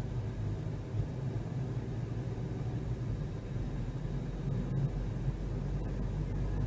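Steady low rumble of a car on the move, its engine and tyre noise heard from inside the cabin.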